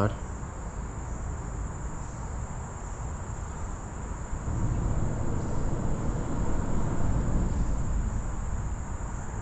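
Steady high-pitched insect trilling, typical of crickets, over a low outdoor hiss. About four and a half seconds in, a low rumble swells and fades out again near the end.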